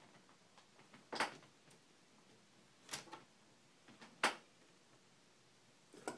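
Small hard clicks and knocks from handling a laptop screen panel and its metal mounting bracket during reassembly: four of them, a second or two apart, the loudest about four seconds in.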